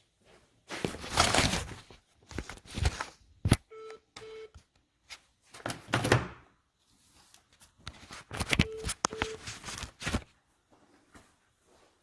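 Irregular rustling and knocking handling noises, with two pairs of short electronic beeps, one pair about four seconds in and another near nine seconds.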